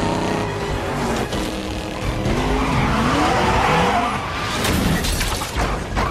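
Film action sound mix: car engines revving with gliding pitch and tyres skidding beside a fuel tanker truck, with a music score underneath.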